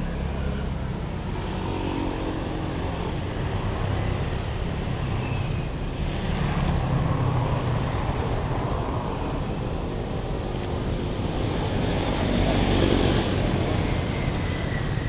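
Street traffic: motorbikes and cars passing along the road, their engines swelling and fading, with the loudest pass about twelve seconds in.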